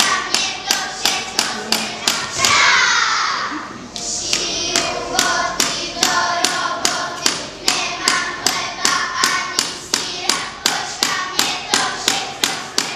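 Children's voices singing together over a steady rhythm of sharp claps, about three a second, with a brief sliding vocal phrase about two and a half seconds in.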